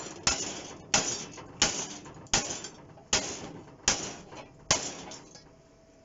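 Ball-peen hammer striking a curved steel plate cut from a gas bottle: about seven blows at an even pace, roughly one every three-quarters of a second, each ringing briefly, knocking a dent back out of the metal. The blows stop about a second before the end.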